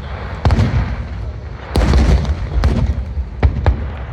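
Aerial fireworks shells bursting in a rapid series of about five sharp booms, each trailing off in a low rumble; the loudest bang comes a little before the middle.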